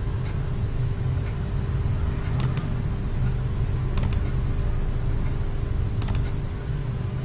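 Computer mouse clicked three times, each click a quick press-and-release pair, over a steady low hum.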